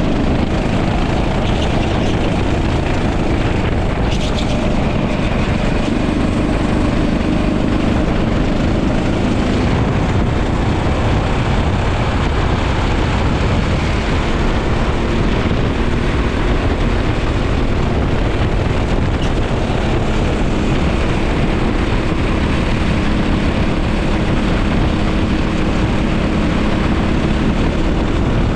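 Go-kart engine running at speed on track, its pitch drifting up and down slightly, under a dense rushing noise.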